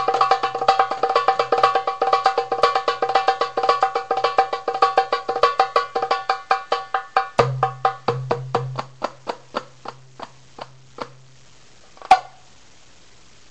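Darbuka (doumbek) solo: fast runs of sharp high strokes, then a deep doum about seven seconds in. The strokes then slow and thin out, and one loud, sharp final stroke lands about twelve seconds in.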